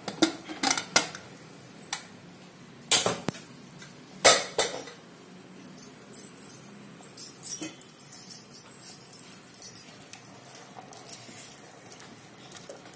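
Aluminium pressure cooker lid being unlocked and lifted off with metal clanks, the two loudest about three and four seconds in. Then a spoon stirring the curry in the pot, with light scattered knocks and scrapes against the rim.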